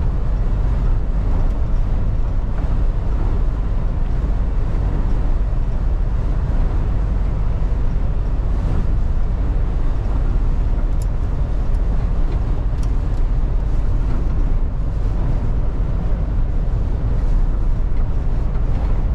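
Cab interior of a MAN TGX lorry cruising on a wet motorway: a steady low drone from the diesel engine and the tyres on the wet road.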